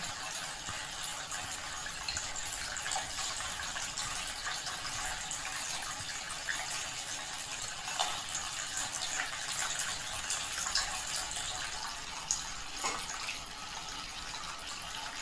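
Water running through a small handmade tabletop waterfall fountain: a steady trickle and splash, with a few sharper drips now and then.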